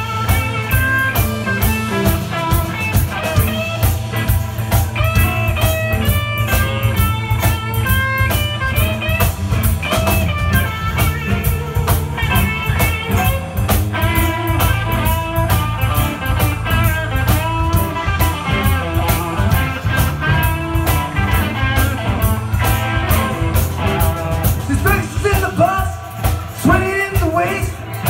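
Live blues band playing: electric guitar over bass guitar and a drum kit keeping a steady beat.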